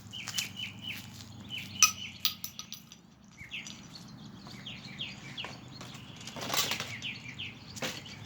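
Small songbirds chirping in repeated quick runs of short downslurred notes. A few sharp clicks come about two seconds in, and brief rustling noise comes near the end.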